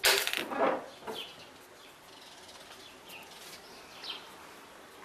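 A wire birdcage clatters and rattles for about a second as it is carried through a doorway. After it, small birds chirp a few times, short high falling notes.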